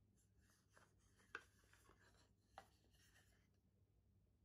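Two stacked wooden round trays being handled and slid apart: faint wood-on-wood rubbing with a few soft knocks, the sharpest about a second and a half in. It dies away a little after three seconds.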